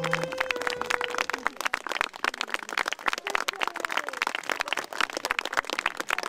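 A small audience clapping: a dense, uneven patter of individual hand claps. The last held notes of the string music die away in the first second.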